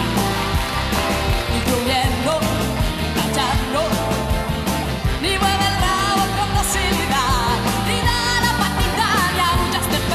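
A woman singing a rock-and-roll song live, accompanied by electric guitar and band with a steady beat.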